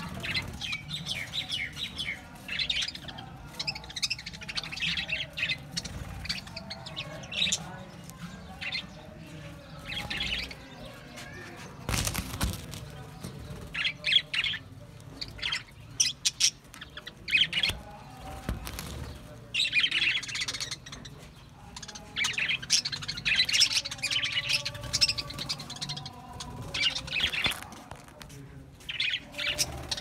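A flock of budgerigars chirping and chattering together, in bouts with short lulls.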